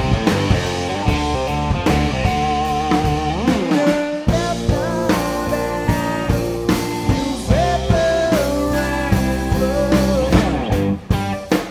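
Blues-rock power trio of electric guitar, bass guitar and drum kit playing an instrumental passage. A guitar line slides and bends between notes over steady drum hits.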